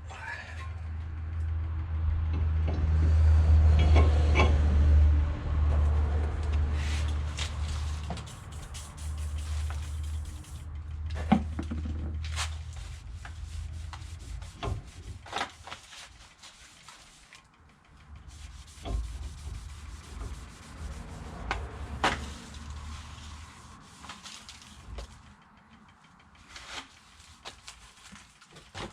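Cloth rubbing over a metal brake rotor to wipe off its anti-rust grease, with scattered clicks and knocks of the part being handled. A low rumble runs through the first dozen seconds and comes back briefly later.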